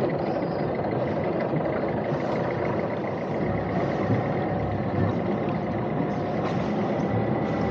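A sailing boat's single-propeller auxiliary engine running steadily during a low-speed docking manoeuvre.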